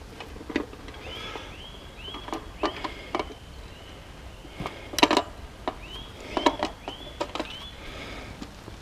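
Wet nylon carp weigh sling rustling and knocking as it is lifted with a carp inside for weighing on a dial scale, the loudest handling noises about five and six and a half seconds in. Runs of short, high, arched chirps, several a second, come in two spells, the first about a second in and the second about six seconds in.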